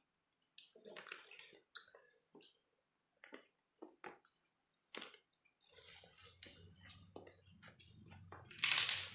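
Chewing and mouth smacks as a man eats fried rice by hand, with small scattered clicks. A low steady hum comes in about six seconds in, and a brief louder rushing noise near the end.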